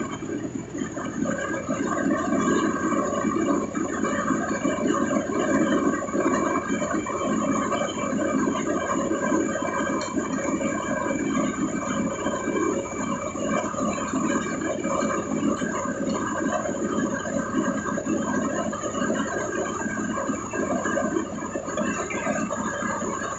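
Wet ready-mix concrete churning and pouring from a concrete truck, with the truck's machinery running steadily underneath.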